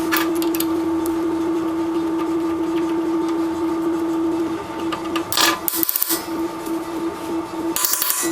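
A small electric motor running with a steady hum that starts to waver after about four and a half seconds, with short scraping, rattling tool noises about five seconds in and again near the end.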